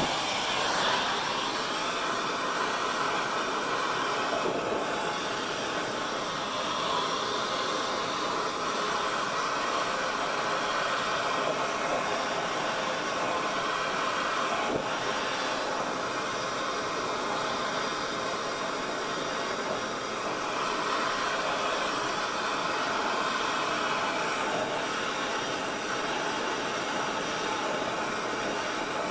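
Handheld gas torch burning with a steady hiss, heating a rear oil gallery plug in a small-block Chevy engine block to expand the metal around it and loosen it.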